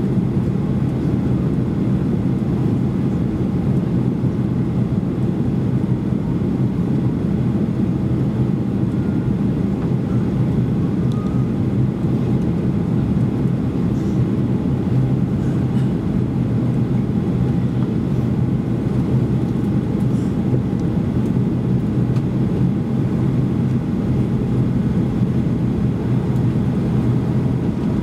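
Steady in-flight cabin noise of a Boeing 737-800, heard from inside the cabin: an even drone of the CFM56 engines and the rush of air along the fuselage, with a low steady hum.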